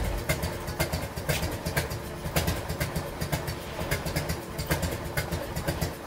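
Harley-Davidson Evolution V-twin idling with an uneven, loping "potato" beat.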